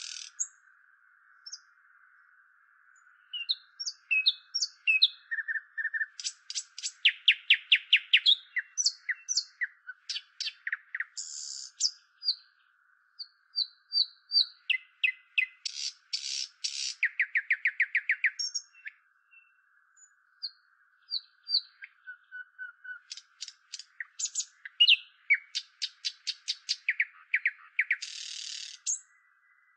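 Nightingale singing: varied phrases of rapidly repeated notes, fast trills, rasping buzzy bursts and short clear whistles, separated by brief pauses, over a faint steady hiss.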